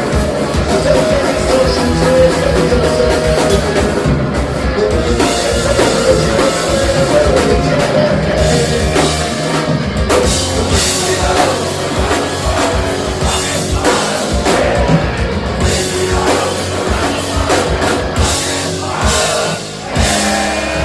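Punk rock band playing live and loud: drum kit, guitars and singing, with a steady run of sharp drum and cymbal hits.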